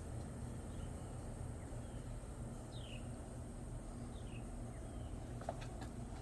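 Steady low background hum with two faint short falling chirps, bird-like, about 3 and 4 seconds in, and a couple of light clicks near the end.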